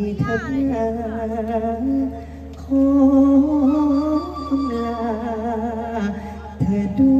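A male Thai likay singer singing through a headset microphone, holding long drawn-out notes with wavering vibrato and ornamented pitch slides. The line breaks off briefly near the end before the next phrase begins.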